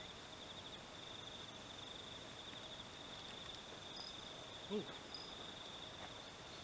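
Crickets trilling steadily, a high, finely pulsing drone. A brief low-pitched sound stands out about three-quarters of the way through.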